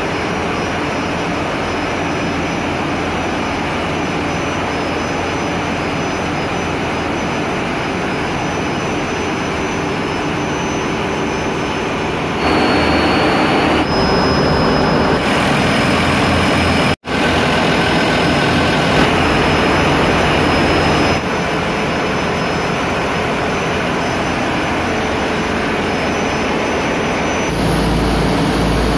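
Tugboat's twin Mitsubishi S6R2 marine diesel main engines running steadily under test, heard close up in the engine room. The loudness jumps abruptly several times, and there is a brief dropout about two-thirds of the way through.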